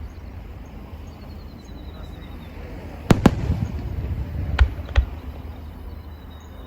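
Aerial fireworks bursting: a quiet stretch of low rumble, then two sharp bangs close together about three seconds in, followed by two more about a second and a half later.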